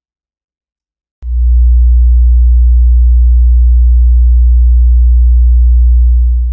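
A loud, low 60 Hz sine-wave test tone, switching on abruptly with a click about a second in and then holding perfectly steady. It is the test signal driving an amplifier into a power meter.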